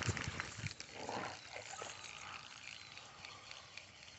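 Faint handling noise from a spinning rod and reel, with soft thumps and scattered light clicks, while a hooked bluegill is played in.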